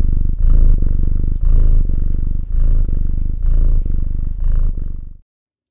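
A cat purring close up, in about six rhythmic swells roughly a second apart, one per breath, before it stops about five seconds in.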